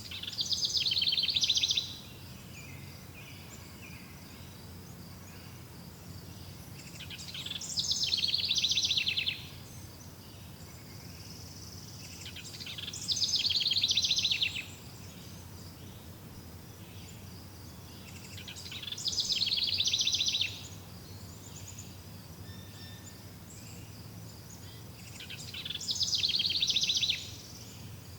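A forest songbird repeats the same song phrase five times, about every six seconds. Each phrase is a fast high trill that swells in loudness over about two seconds and ends abruptly. A faint steady high buzz runs underneath.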